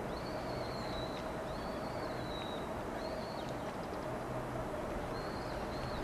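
A bird calling with about five high, drawn-out whistled calls, each rising slightly and then falling away, over a steady low hum.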